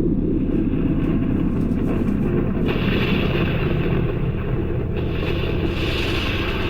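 Thunderstorm sound effect from the Gemmy LED ThunderBolt projector's speaker: a long, steady rumble of thunder, with a higher hiss that comes in about three seconds in and swells again near the end.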